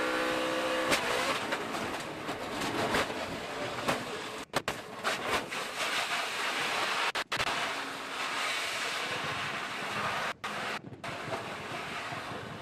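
In-car audio of a NASCAR Truck Series race truck crashing: a held engine note at first, then a steady loud rushing, rattling noise as the truck slides and goes over. The sound cuts out briefly several times.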